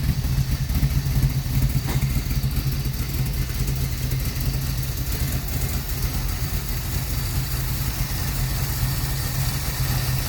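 Sunbeam Tiger's Ford V8 idling steadily while it warms up after a cold start.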